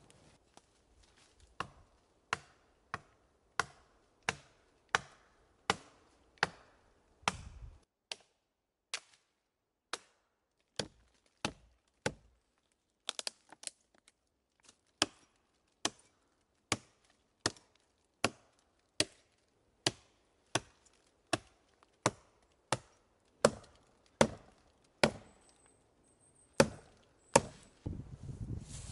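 Axe chopping at the branches of a fallen pine, a long run of sharp, evenly spaced blows about every two-thirds of a second, with a brief pause about a third of the way in.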